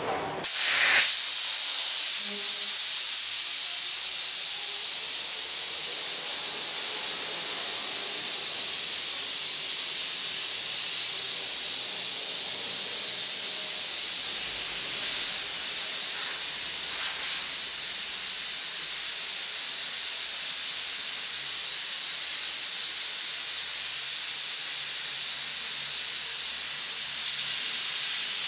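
Steady hiss of compressed air in a pneumatic ball-molding press. It starts suddenly about half a second in and dips briefly about halfway through before carrying on.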